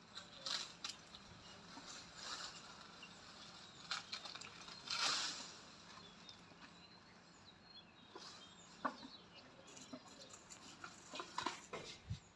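Wild Asian elephant feeding in a tree: leaves rustling and twigs snapping in short, scattered bursts as it pulls at the branches with its trunk.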